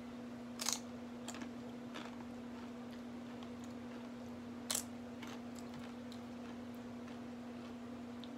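Crisp tortilla chip crunching as it is bitten and chewed: two loud crunches about four seconds apart, with a few softer ones after each. A steady low hum runs underneath.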